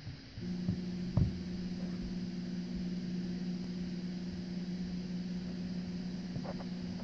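Steady electrical hum and hiss from a videotape playing back, setting in about half a second in, with a few faint clicks about a second in and near the end.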